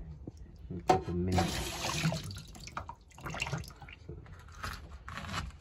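Water running and splashing in a stainless steel kitchen sink as vegetables are washed, coming in uneven bursts, with a sharp knock about a second in.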